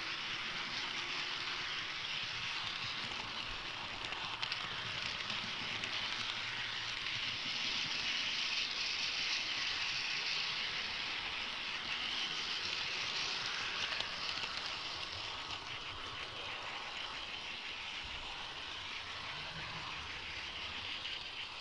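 Steady hissing rumble of an HO-scale model train rolling along its track, heard from a camera riding on the train, with a few faint clicks.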